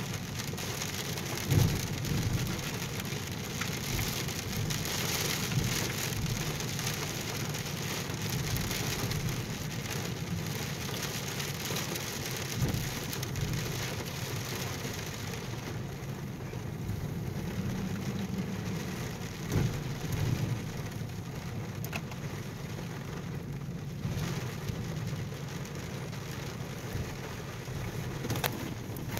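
Rain hitting a car's windshield and roof, heard from inside the moving car over the steady low rumble of the drive. A few sharper thumps stand out, the loudest about a second and a half in and again about twenty seconds in.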